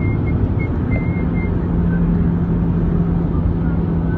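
Car driving at highway speed, heard from inside the cab: a steady rumble of tyre and engine noise, with a steady hum that comes in about a second in.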